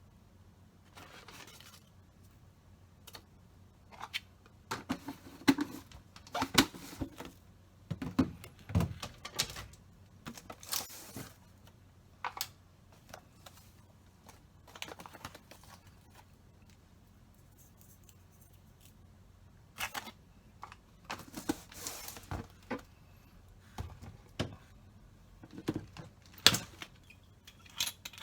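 Kitchen preparation sounds: irregular sharp knocks, clicks and short rustles of utensils and food being handled, busiest in two stretches with a quiet gap between them.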